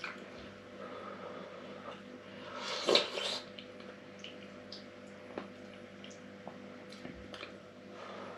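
A person eating stew with a metal spoon from a ceramic bowl: wet chewing and a few light clicks of the spoon on the bowl, with one louder scraping burst about three seconds in, over a faint steady hum.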